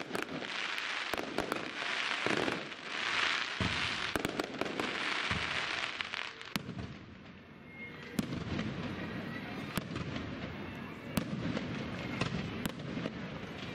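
Aerial fireworks bursting in quick succession: many sharp bangs over swelling crackling hiss. About eight seconds in, the hiss gives way to a denser, lower rumble of booms.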